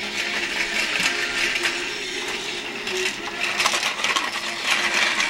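Battery-powered toy trains running on plastic track: a steady rattly whir of small motors and wheels, with scattered clicks of plastic parts.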